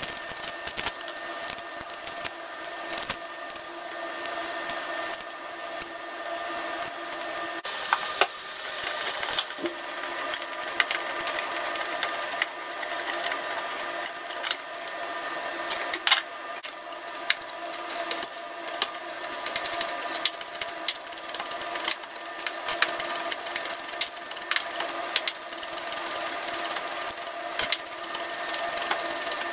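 Food-prep handling sounds over a steady hum. First, papery rustling and cracking as a garlic bulb is broken and peeled by hand. Then a hand-held can opener clicks and crunches around the lid of a tin can, and near the end a chef's knife taps and knocks, chopping garlic on a cutting board.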